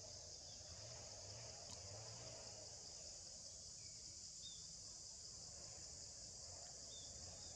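Faint, steady, high-pitched drone of a forest insect chorus, with a few short chirps scattered through it.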